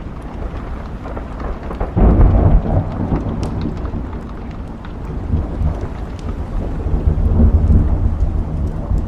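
Thunder rumbling over steady rain: a deep rumble breaks in suddenly about two seconds in and swells again near the end. A log fire crackles faintly with small scattered pops.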